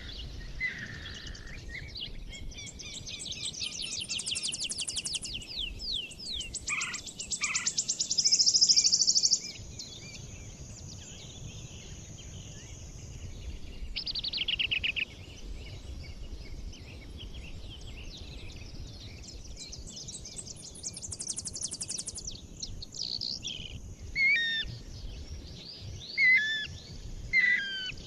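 Several songbirds singing and calling: high rapid trills come and go, the loudest a fast trill about eight seconds in, with sharp chirping call notes near the end, over a faint low background rumble.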